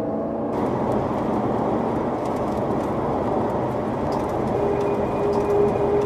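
Strong wind blowing over the microphone near a tornado: a steady, loud rushing noise. A faint steady tone joins about four and a half seconds in.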